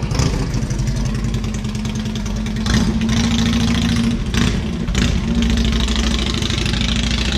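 Motor engine running steadily and loudly nearby.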